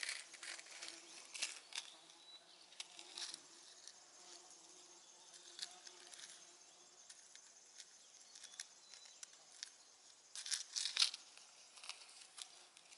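Faint crinkling and clicking of a plastic hook packet being opened and handled by fingers, with a louder flurry of rustling about ten seconds in. A faint steady hum runs under the first half.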